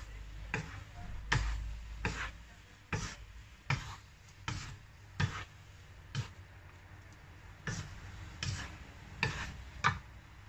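Wooden spatulas knocking against a non-stick wok while noodles are tossed and stirred: about a dozen sharp knocks, roughly one every three-quarters of a second, with a short pause a little past the middle.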